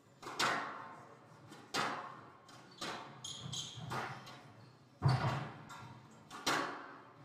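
Squash rally: six sharp strikes of the ball off rackets and walls about one every second or so, each echoing in the court, with short shoe squeaks on the wooden floor about halfway through.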